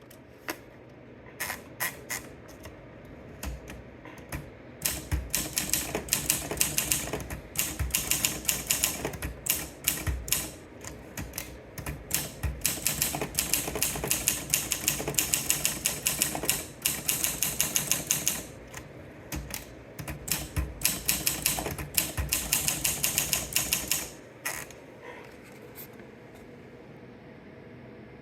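Olympia SM2 manual portable typewriter being typed on: a few single keystrokes, then fast, steady runs of sharp type-bar clacks with short pauses, slowing to a few last strokes near the end.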